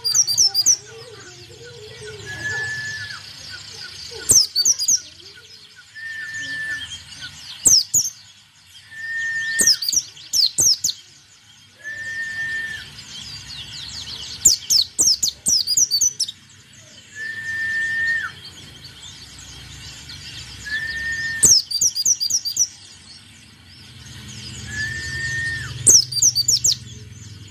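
A white-eye (pleci) singing in short, loud, very rapid bursts of high chirps every two to three seconds, with a steady whistled note of about half a second recurring between the bursts.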